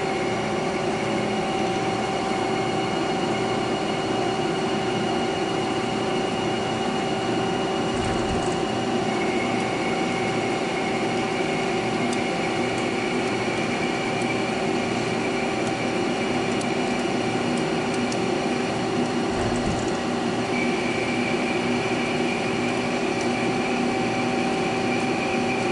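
Haas CNC lathe running steadily as it rough-turns 1-inch aluminum bar stock in a G71 stock-removal cycle, a steady hum with a higher whine that comes in about nine seconds in, drops out near nineteen seconds and returns a second later.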